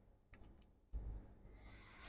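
Faint handling noise at the work bench: a couple of light clicks, then a dull low thump about a second in.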